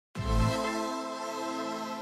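Intro music: a single chord that starts with a deep low hit about a tenth of a second in and is then held steady.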